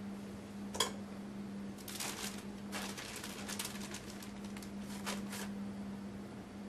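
Light crinkly clicks and taps in short clusters, with one sharp click about a second in, as strawberries are handled and set in a glass trifle bowl, over a steady low hum.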